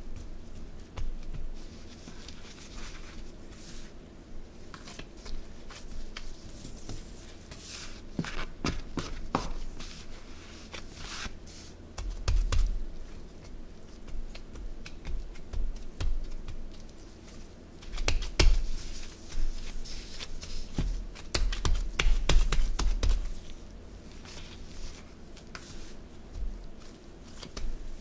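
Bench scraper scraping and tapping on a stone countertop while gloved hands press and pat crumbly corn scone dough: a run of short scrapes and clicks, with dull thuds as the dough is pressed down, clustered about halfway and again about three-quarters through.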